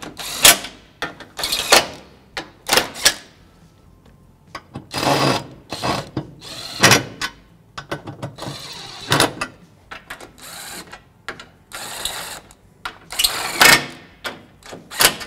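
Cordless electric impact wrench fired in a string of short trigger bursts with pauses between, running the strut brace's bolts and nut down until they seat.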